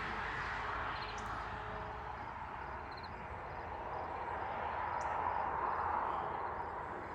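Outdoor background: a steady hiss that swells a little past the middle, with a faint high chirp repeating about twice a second and a couple of single high chirps.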